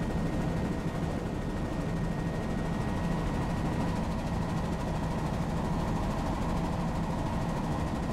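Helicopter in steady cruise flight heard from on board: a continuous drone of rotor and engine, with a thin, steady high tone above it.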